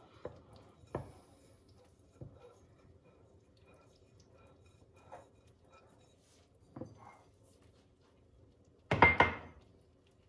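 Kitchen utensils and dishes handled: a few light taps and knocks, then a louder ringing clatter of dishes or cutlery about nine seconds in.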